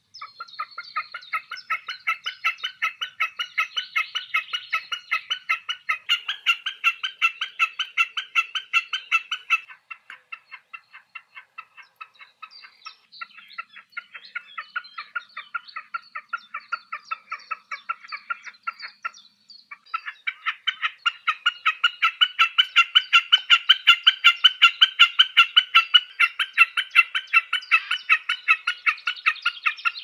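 Common snipe singing its spring song: a long run of rapid, evenly repeated notes, a few a second, with a weaker stretch about ten seconds in and a short break near nineteen seconds.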